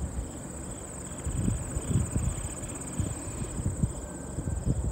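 Field insects trilling in one steady, high-pitched drone, with uneven low rumbling underneath.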